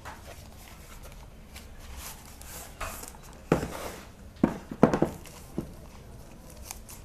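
Cardboard packaging and the power bank's soft wrapping being handled: quiet sliding and shuffling, then a few sharp rustles and crinkles between about three and a half and five and a half seconds in, over a faint low hum.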